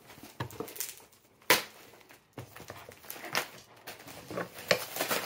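Taped packaging being pulled and torn open by hand: irregular rustling and scraping, with a sharp crack about a second and a half in.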